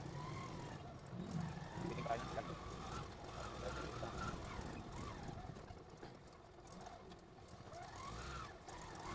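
Faint background of distant voices over a low, steady rumble.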